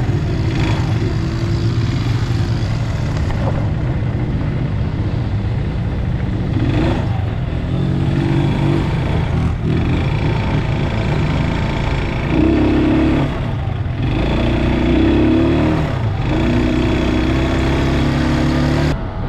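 Quad bike (ATV) engine running under load as it rides over desert sand, its note rising and falling with the throttle. It cuts off abruptly near the end.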